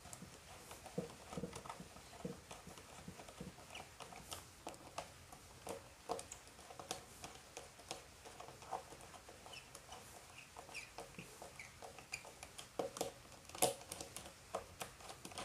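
Scattered small clicks and scrapes of a screwdriver working the terminal screws of a row of miniature circuit breakers while a busbar link is fitted and snugged down. A few faint squeaks come about two-thirds of the way through, and a louder click comes near the end.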